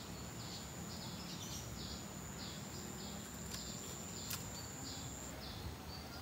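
Outdoor wildlife chirping: short high chirps repeat about twice a second over a steady high whine. The whine stops about five seconds in. A low rumble of outdoor background noise runs underneath, and there is a single faint click about four seconds in.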